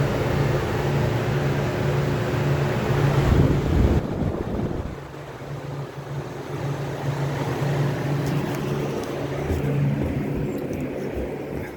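Copeland air-conditioner compressor running with a loud, steady hum, then cutting off about four seconds in, leaving the condenser fan running on with a lower hum.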